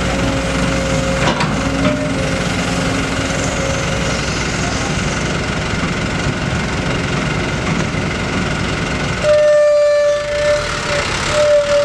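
Diesel engine and hydraulics of a Sumitomo SH210 long-reach excavator running steadily while it loads a dump truck. About nine seconds in, a vehicle horn sounds twice, a long blast then a short one, signalling the loaded truck to move off.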